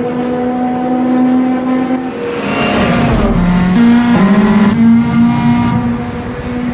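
Turbocharged Ford Fiesta rally car engine running hard at high revs, holding a steady note and then dipping and jumping in pitch with throttle lifts and gear changes about three seconds in. Tyres squeal briefly around the middle.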